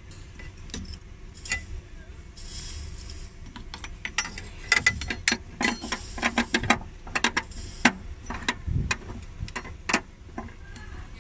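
Battery hold-down bracket being fitted back at the base of a car battery: a run of irregular clicks and knocks, thickest from about four to eight seconds in, with a dull thump near the end.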